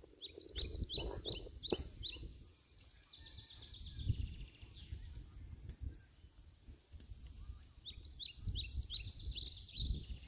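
A bird calling a quick run of short, high chirps, about four or five a second, once near the start and again near the end, over a low, uneven rumble.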